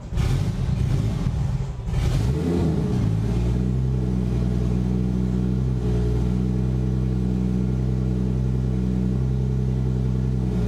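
Car engine revving unevenly, then settling into a steady idle from about three seconds in.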